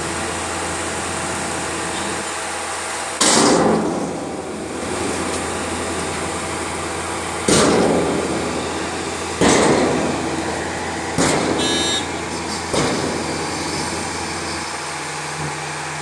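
Tipper truck's diesel engine running steadily with its body raised. Five sudden crashes that fade within about a second come as soil and clods drop from the tipped body onto the pile.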